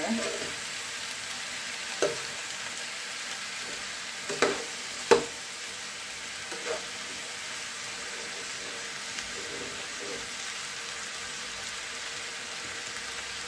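Sliced bitter melon and other vegetables sizzling in hot oil in a frying pan while a metal spoon stirs them. A handful of clinks and knocks of the spoon against the pan come in the first seven seconds, the loudest about five seconds in.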